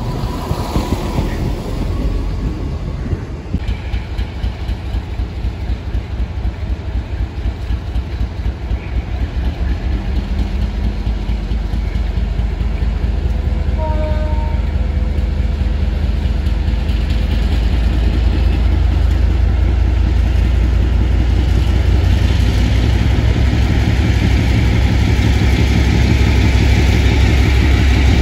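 A train's wheels clatter rhythmically over the rails for the first ten seconds or so. Then the deep rumble of a Class 56 diesel locomotive's V16 engine builds steadily louder as it draws in with its freight wagons.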